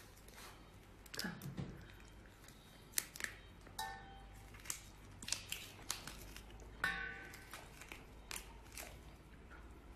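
Shell of a large cooked prawn cracking and tearing as it is pulled apart by hand: a string of irregular sharp cracks and crinkles.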